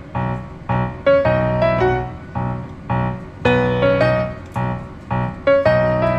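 Background piano music: a slow melody of struck notes that ring and fade, about two notes a second.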